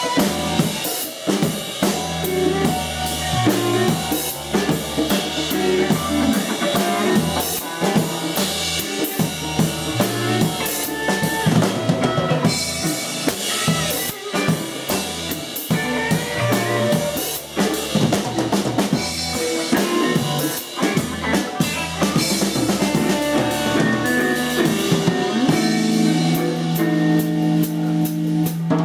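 A live band playing at full volume: a drum kit with kick, snare and rimshots drives the beat over bass and other pitched instruments, with a long held bass note near the end.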